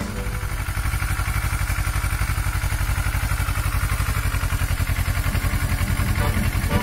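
Kawasaki Versys motorcycle engine running at idle, with a steady, even pulsing beat.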